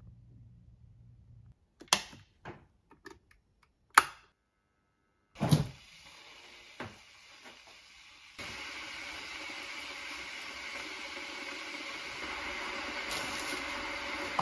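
Kitchen handling sounds: a few sharp clicks and knocks, the loudest about four seconds in and a heavier knock about a second later. Then, about eight seconds in, a steady rushing noise starts and keeps going.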